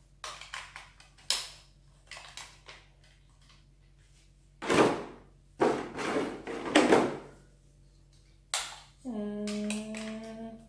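Hard plastic toy armour pieces clicking and knocking as they are handled and fitted onto an action figure. In the middle there is a rustling stretch from the clear plastic blister tray, and near the end a steady hum-like tone lasts about a second and a half.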